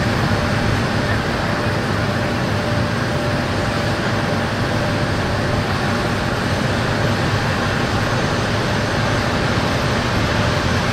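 Airbus A380 on the ground with its engines running: a steady, loud jet rush with a faint high whine.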